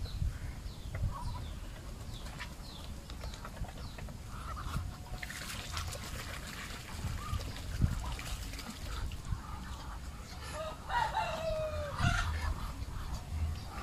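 Muscovy duck bathing in a tub of water, splashing heavily for a couple of seconds about five seconds in. Near the end a rooster crows once, and other poultry call briefly throughout.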